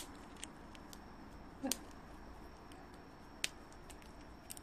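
Siberian chipmunk gnawing at a chestnut's shell: faint, sparse, crisp clicks, a handful spread over a few seconds.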